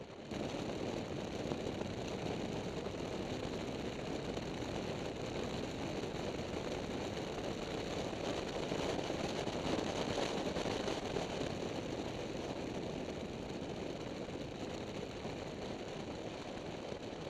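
Triumph Tiger motorcycle on the move: a steady rush of wind, engine and tyre noise at road speed, swelling a little about eight to eleven seconds in as a line of oncoming trucks passes close by.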